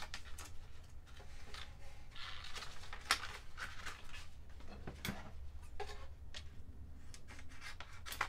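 Monokote plastic heat-shrink covering film crinkling and rustling as it is handled and folded by hand, with a few light clicks. A scissors cut comes right at the end.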